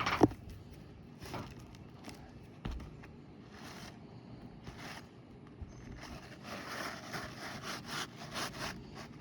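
A new asphalt shingle being worked in under the course above, rasping against the old shingles in short scraping strokes. There is a sharp knock just after the start, and a quick run of scrapes near the end.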